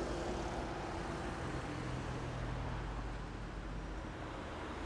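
City bus and cars driving past close by, a steady rumble of engines and tyres.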